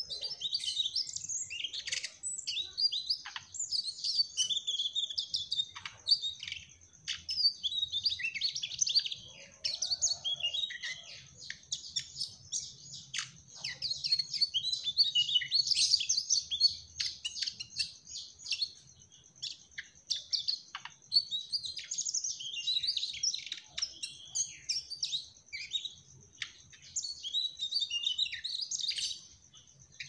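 Male mugimaki flycatcher singing nonstop: a rapid, almost unbroken stream of high chirps, twitters and trills, pausing only briefly a couple of times.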